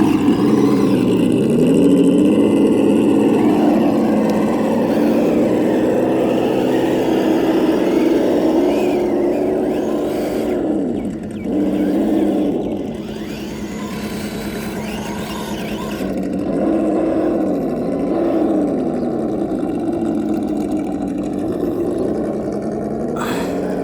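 Kyosho Blizzard radio-controlled tracked snow vehicle's electric motor and drive whining, its pitch rising and falling again and again as the throttle is worked, with a short drop about eleven seconds in.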